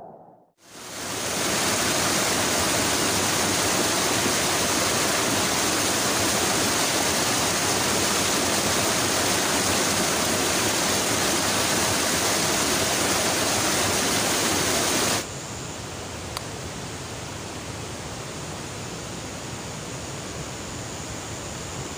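Rushing water of a shallow rocky stream, a loud steady hiss that starts about half a second in and cuts off sharply near the middle. After the cut comes a quieter steady hiss.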